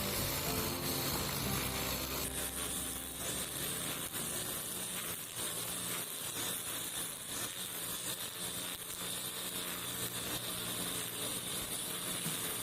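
Brush cutter engine running steadily with a hissing whir while cutting grass.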